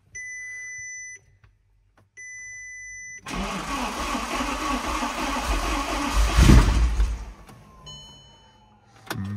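Two dashboard warning beeps, then the Audi R8's V10 cranks and fires about three seconds in. It is loudest about three seconds later and then drops to a quiet idle, with another dash chime and a short knock near the end. This is the first start after the intake was refitted, with bank one's throttle body connector not fully pushed in and setting a fault code.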